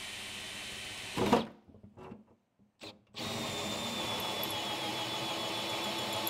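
Makita cordless drill turning a hole saw through the aluminium floor of a boat's anchor well. Steady running, then a loud knock about a second in and the drill stops; after a short burst it runs steadily again from about three seconds in, with a high whine.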